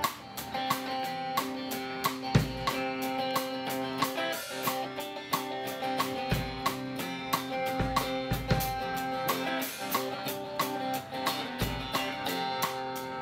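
Instrumental break in a song: guitar playing sustained chords over a steady drum beat with hi-hat ticks and a few deep bass hits.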